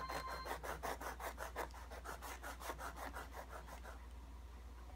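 A new guitar nut being filed down by hand with quick back-and-forth scraping strokes, about six or seven a second, which stop about four seconds in.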